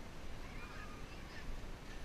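Alpine coaster sled rolling along its track, a steady low rumble, with a brief faint wavering squeal about half a second in.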